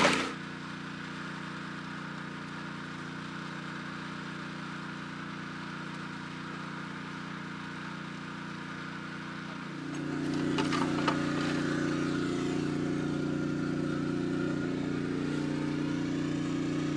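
Engine-driven water pump running steadily with an even hum. About ten seconds in it becomes louder, with a few light knocks just after.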